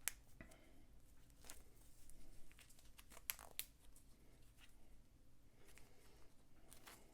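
Near silence with faint rustling and a few small clicks of handling, from a wristwatch and its nylon strap being turned round on the wrist.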